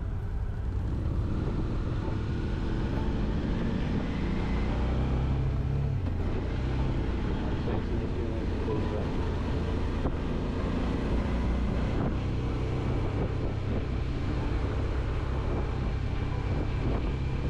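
BMW R1150RT motorcycle's boxer twin running steadily under way, with road and wind noise picked up from the rider's helmet, the engine note rising in the first few seconds.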